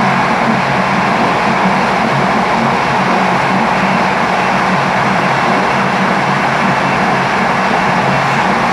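Train running steadily at speed on continuous track, heard from the driver's cab: an even running rumble of wheels on rail with a low hum under it.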